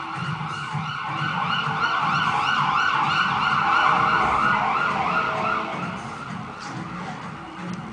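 A siren wailing rapidly up and down, growing louder to a peak about four seconds in and then fading away.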